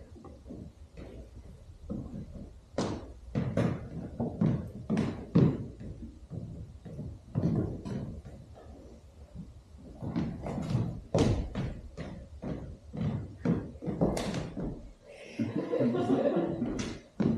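A run of short, irregular knocks and thuds, in places about two a second, with a brief stretch of a more continuous, voice-like sound near the end.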